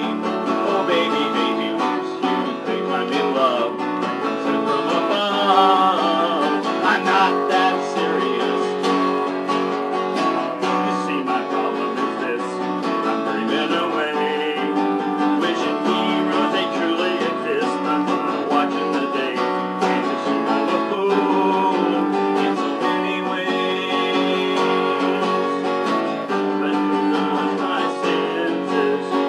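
Music: acoustic guitar strumming steadily through a song, with a singing voice heard in places.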